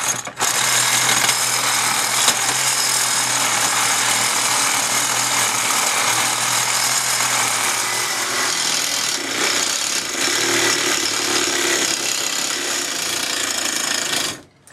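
Reciprocating saw cutting through the internal baffle of a cast metal intake manifold, running steadily, then stopping suddenly near the end.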